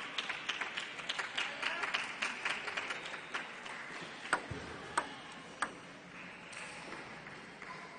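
A short patter of clapping fading out, then a table tennis ball bouncing three times, sharp clicks a little over half a second apart.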